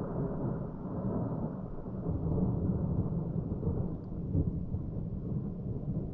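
Distant thunder rolling in a long, low, continuous rumble with no sharp crack.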